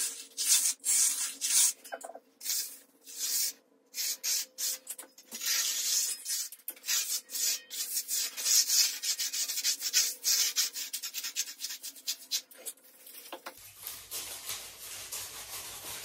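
Steel finishing trowel scraping over a fresh concrete slab in repeated hand strokes, smoothing the surface as the concrete stiffens. The strokes come quick and short in the middle, then lighter and softer over the last couple of seconds.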